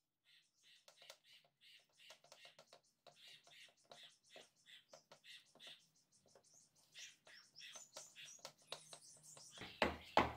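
A wooden spatula spreads and pats soft coconut halwa into a steel tray, making a run of faint short scrapes and taps. Near the end come louder knocks and scrapes as a flat steel spatula presses the mixture down, over a low hum.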